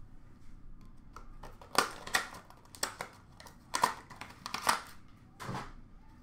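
Trading cards in plastic holders and sleeves being handled and dropped into a plastic bin: about half a dozen sharp plastic clacks and rustles, irregularly spaced.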